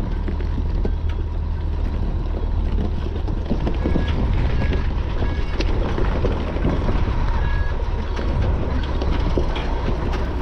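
Cat 279D compact track loader's diesel engine running steadily, with frequent metallic clanks and rattles and a few short squeaks.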